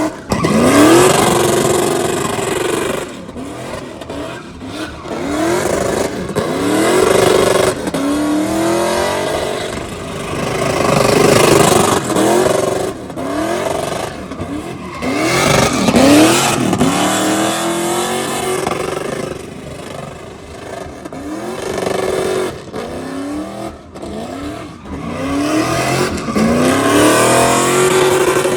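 Pickup truck's freshly rebuilt engine revving up again and again, about every two to three seconds, as it does a burnout, with a steady hiss of spinning tires underneath.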